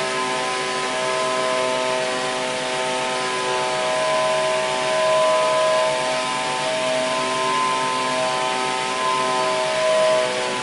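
Machinery running steadily: a continuous hum made of several wavering tones over a hiss.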